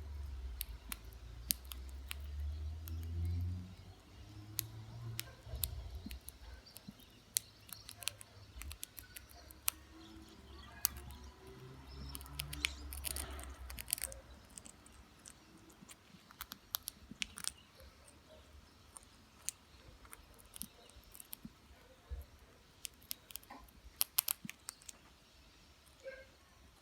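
Parrot biting and crunching a potato chip in its beak: irregular sharp cracks and clicks, some in quick clusters. A low rumble runs under the first half and stops about halfway through.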